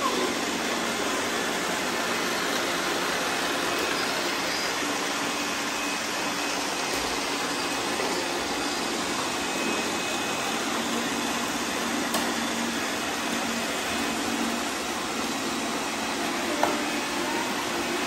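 Several robot vacuum cleaners running together on a tile floor, giving a steady whirring hiss from their suction fans and spinning brushes as they pick up confetti.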